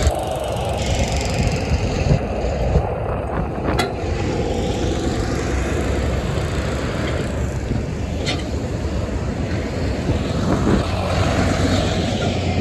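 Heavy diesel dump trucks with trailers passing close by, with steady engine and tyre noise. Two brief sharp high sounds stand out, about four seconds apart.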